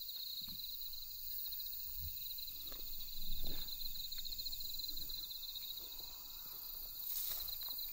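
Crickets trilling steadily, a fast pulsing chirr, with a few faint footsteps and rustles in dry grass. The loudest step comes about three seconds in.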